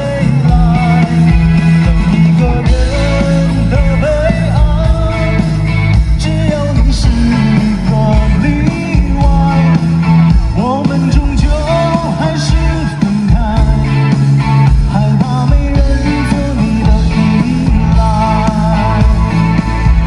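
A man singing a pop ballad live with a band of keyboard, guitar and drums through a concert sound system, heard from the audience.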